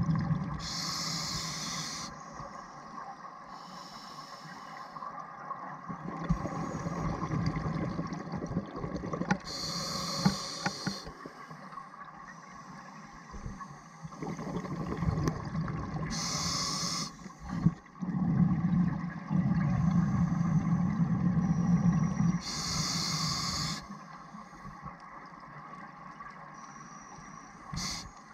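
A scuba diver breathing through a regulator underwater: each breath comes with a regulator hiss and a rush of exhaled bubbles, repeating every several seconds, with low bubbling rumbles in between.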